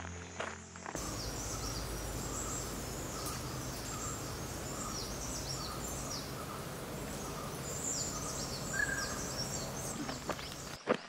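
Forest ambience: many birds chirping in quick, high, falling notes, with a lower call repeating at a steady pace, over a steady hiss.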